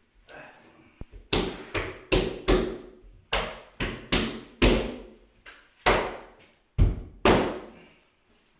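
A series of about a dozen sharp knocks, roughly two a second with a couple of short pauses, starting about a second in.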